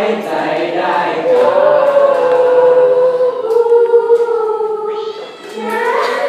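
High-school choir singing in parts, ending a phrase on a long held chord that fades away about five seconds in.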